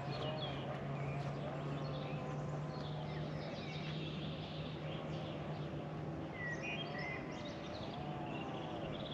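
Birds chirping and calling in short high notes over a steady low hum, with a wavering pitched tone in the middle range.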